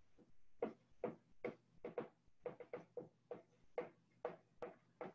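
Dry-erase marker writing on a whiteboard: a faint, quick series of short strokes, about two or three a second.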